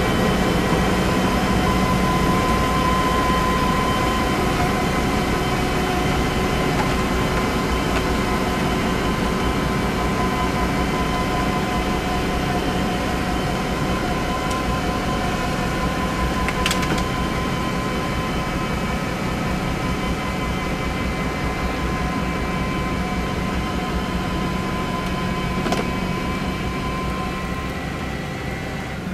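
Fendt 516 Vario tractor driving its Dalen front-mounted snow blower at work: a steady, loud mechanical drone with a constant whine as the blower throws snow up the chute into a dump truck. Two short sharp clicks stand out, one about halfway through and one near the end.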